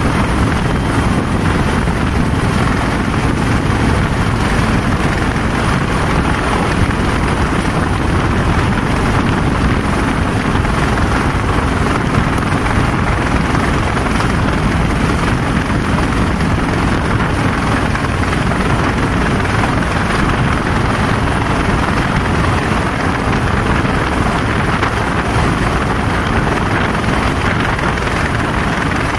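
Helicopter hovering low overhead, its rotors and engine making a loud, steady din.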